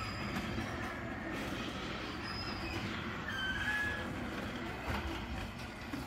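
Motorized double-wide sectional garage door opening: a steady mechanical rumble with a few brief high squeals.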